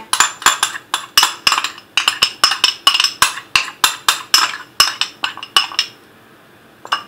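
A metal spoon clinking quickly against a small glass bowl, about four or five sharp clinks a second, as dissolved gelatin is scraped out into the cheesecake mixture. The clinking stops about six seconds in.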